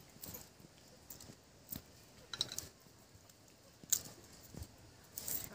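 Garlic cloves being peeled by hand: dry papery skins crackling and small sharp clicks at irregular moments.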